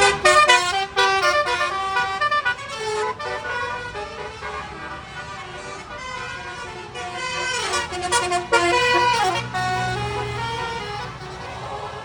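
Basuri telolet horn, a multi-tone musical horn on a bus, playing a quick tune of short stepped notes. It pauses in the middle, then plays another phrase ending in a fast falling run.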